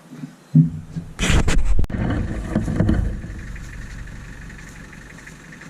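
A vehicle engine running, with a few knocks and clunks in the first two seconds, then a low rumble that fades over the last few seconds.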